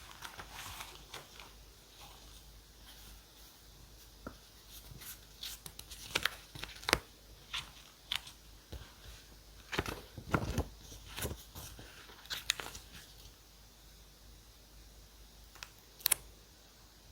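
Paper and stickers being handled on a journal page: irregular rustling, peeling and light taps. They are busiest from about six to thirteen seconds in, with a sharp click near the end.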